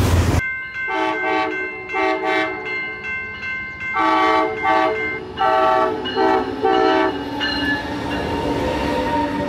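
Passenger locomotive horn sounding a series of long and short blasts as the train approaches a grade crossing, then the train's wheels rolling past near the end. A heavy freight train rumble cuts off abruptly just at the start.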